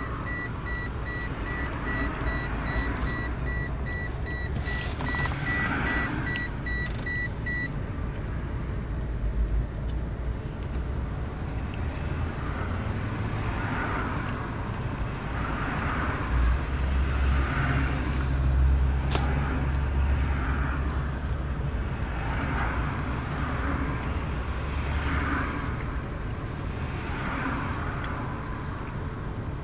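Rapid electronic beeping at one steady pitch for about the first eight seconds, over rustling and clicking of hands working on plastic dashboard trim. After that the handling noises go on, with a low rumble swelling in the middle.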